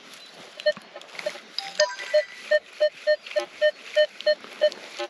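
Minelab Equinox 900 metal detector beeping as the coil is swept: short, same-pitched beeps, about three a second, with a brief cluster of higher tones about two seconds in. It is a signal that the detectorist judges to have too much iron mixed in.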